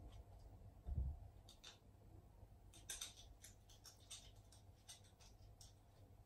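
Faint, irregular clicking of a Shiba Inu's claws on a hard floor as it walks about, with a soft low thump about a second in.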